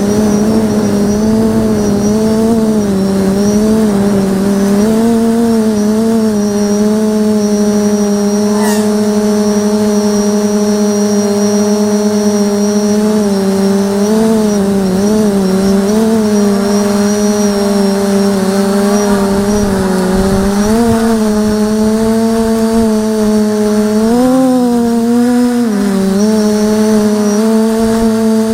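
A 550 mm quadcopter's electric motors and propellers humming steadily, heard through its onboard camera, with a faint high whine above. The pitch wavers slightly with throttle and rises and dips quickly about 24 seconds in.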